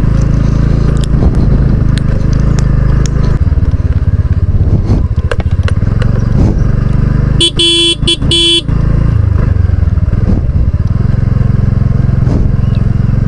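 Motorcycle engine running steadily on the road, its note shifting a few seconds in. About seven and a half seconds in, a vehicle horn sounds in a few quick short blasts.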